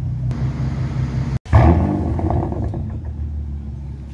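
Mansory-tuned Bentley Bentayga's engine idling steadily through its exhaust, cut off by a brief dropout about a second and a half in. It is followed by a loud flare of the engine that settles back down toward idle.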